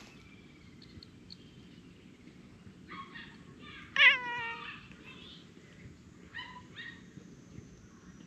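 Orange tabby cat meowing several times: a couple of short meows about three seconds in, one loud, drawn-out meow about four seconds in that drops a little in pitch, then a few shorter meows at about five, six and a half and seven seconds.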